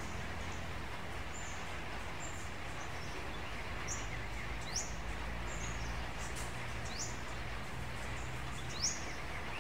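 Small birds chirping: short high calls, several sliding quickly down in pitch, about one a second, over a steady background hiss and low rumble.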